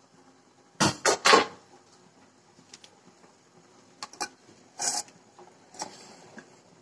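Kitchen dishes and utensils clattering: three quick loud knocks about a second in, then a few lighter knocks and clinks.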